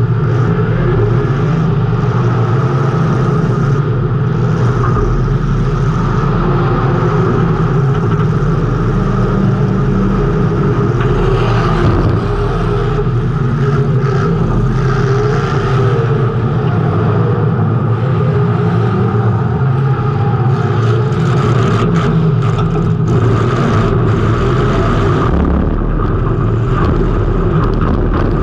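Race car engine running hard through a heat race, a steady loud rumble heard from a camera mounted on the car, with wind and road noise over it.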